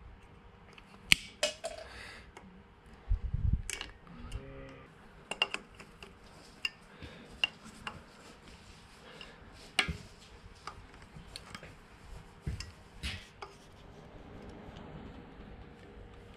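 Pliers twisting locking tie wire through drilled bolt heads on a spindle retaining flange: scattered sharp metallic clicks and ticks of the jaws and wire against the bolts, a few louder snaps among them.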